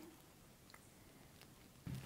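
Near silence: room tone, with two faint small ticks.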